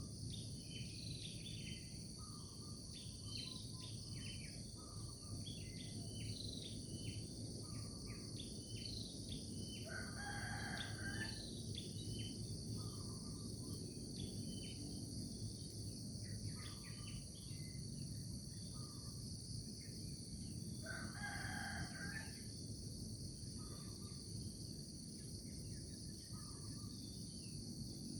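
Morning countryside ambience: a steady high-pitched insect chorus and small birds chirping. A rooster crows twice, once about a third of the way through and again near three quarters.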